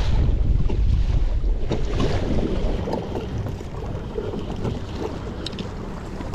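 Wind buffeting the microphone over water splashing and lapping against a kayak's hull as it moves through choppy water. The wind rumble is heaviest for the first couple of seconds, then eases.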